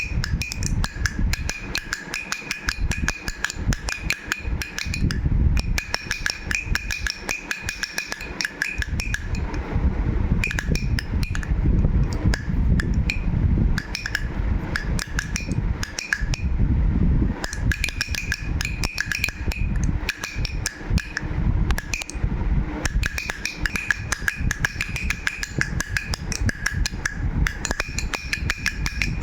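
Baby rattle shaken continuously: a dense clatter of rapid clicks, with a high ringing tone that comes and goes, over a low rumble.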